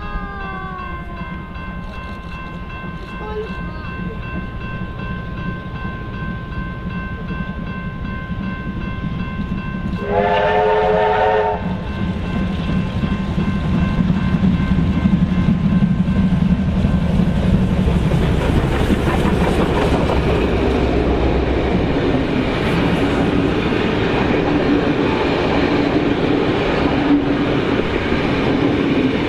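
Two steam locomotives hauling a passenger train approach with a building rumble. A steam whistle blows once for about a second and a half, around ten seconds in. The locomotives and carriages then pass close, loud, with wheels clacking over the rail joints.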